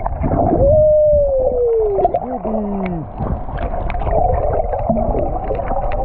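Sound heard underwater as a large hooked fish thrashes at the surface: churning water and crackling bubbles over a low rumble, with a few long tones that glide down in pitch, the loudest starting about half a second in.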